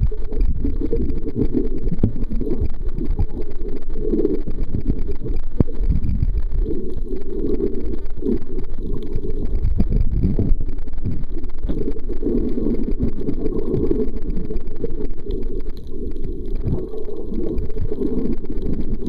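Muffled, low water noise heard through a camera held underwater, swelling and easing unevenly, with a few faint clicks.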